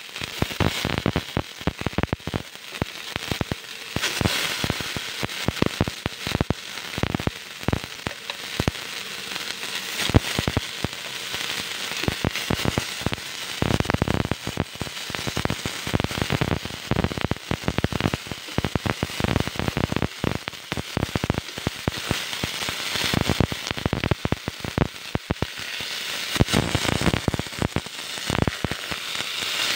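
Canned pineapple slices frying in a stainless steel frying pan: a steady, dense crackle and sizzle of small pops and spits.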